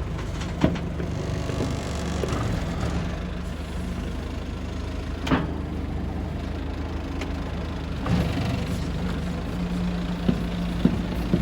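Mitsubishi BD2J2 swamp bulldozer's diesel engine running steadily, with a few sharp clanks scattered through, several near the end.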